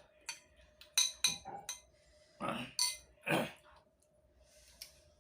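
Cutlery clinking lightly against a dish several times while eating, with a few short breathy puffs in between.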